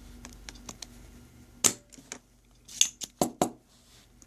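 Spring-loaded desoldering pump (solder sucker) clicking as it is worked on a solder joint. It gives one sharp snap about a second and a half in and three more close together around three seconds, with small ticks of handling before.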